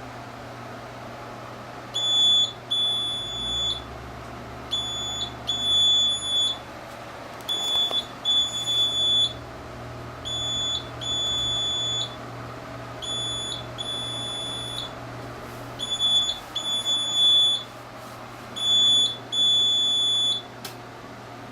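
Printer's error alarm beeping: a short high beep followed by a longer one, the pair repeating about every two seconds, over a steady low hum.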